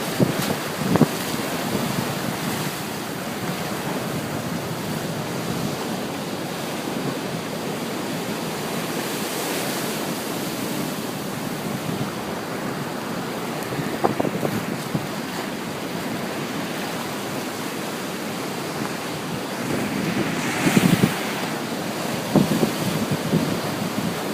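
Ocean surf washing in as a steady rush of breaking waves, with wind rumbling on the microphone in gusts now and then, strongest near the end.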